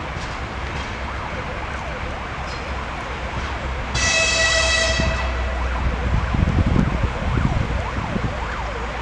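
TEM14 shunting diesel locomotive running with a low rumble as it pulls away. About four seconds in there is a single high-pitched horn blast lasting about a second.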